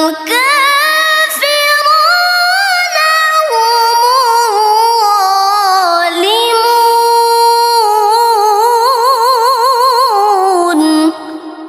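A single voice performing melodic Quran recitation (tilawah) in one long drawn-out phrase. It climbs and falls in pitch, with fast wavering trills in the middle and near the end, then breaks off about eleven seconds in, leaving a fading echo.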